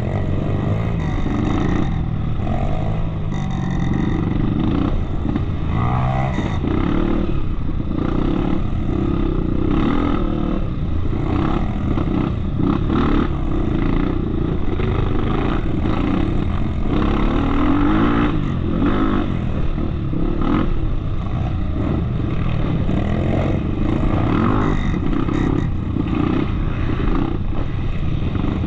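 Off-road trail motorcycle engine running under way, its pitch rising and falling as the throttle opens and closes, with frequent short knocks and clatter.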